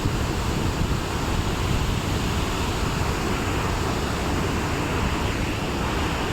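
Steady rushing roar of a large waterfall, the Jang falls, with wind and spray buffeting the microphone.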